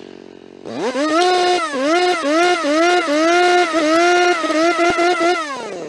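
Motorcycle engine revving hard as the bike pulls away: the pitch climbs sharply about a second in, then rises and dips several times before holding high, and falls away near the end.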